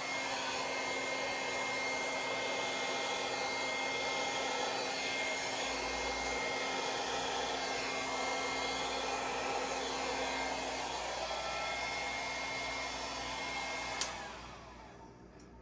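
Handheld electric blower running steadily, blowing air across wet acrylic paint to push the pour out to the edge of the canvas. About fourteen seconds in it is switched off with a click, and its motor whines down to a stop.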